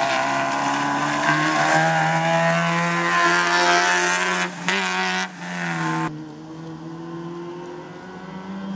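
Small rally hatchback's engine running at high revs close by, with two brief dips a little after four and five seconds. About six seconds in, the sound cuts to the car's engine farther off, quieter and growing louder as it approaches.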